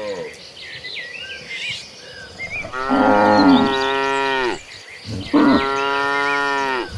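Cattle mooing: two long, drawn-out moos, one starting about three seconds in and one about five and a half seconds in, each sagging in pitch as it fades, after the tail end of another moo at the start.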